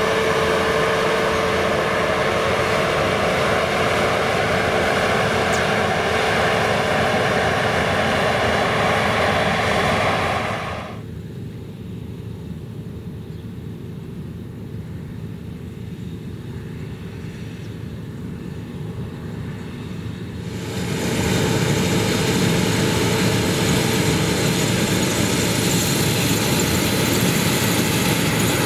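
Claas Lexion 560 combine harvester running while threshing windrowed grass for seed: a steady machine drone with a constant whine. For about ten seconds in the middle it drops to a fainter, more distant sound, then comes back close and loud.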